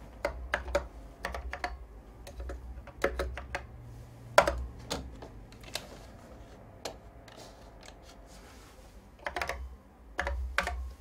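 Typing on the original Macintosh keyboard, mixed with clicks of the Apple mouse button: irregular sharp clicks, some in short quick clusters, the sharpest about four seconds in.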